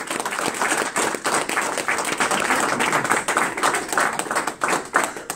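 A small audience applauding, many hands clapping steadily together.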